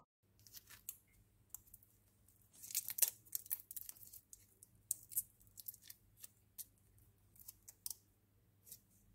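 Foil lollipop wrapper being twisted and peeled off by hand: scattered crinkles and crackles, busiest about three seconds in, then sparse clicks.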